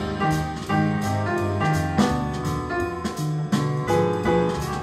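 Jazz-style music with piano, bass and drums.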